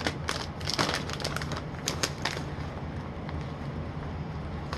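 Crinkling and crackling of a kettle corn snack bag being handled and opened, a quick run of sharp crackles in the first couple of seconds, then only a few scattered ticks. A steady low hum runs underneath.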